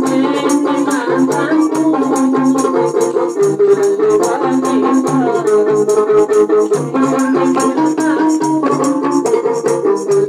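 Live amplified gambus music: held melodic lines over a hand-beaten frame drum and a rattle keeping a steady quick beat.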